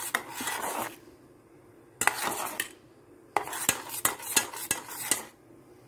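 Metal spoon stirring thick sauce in a small stainless-steel saucepan, scraping and clinking against the pan in three bouts with short pauses between.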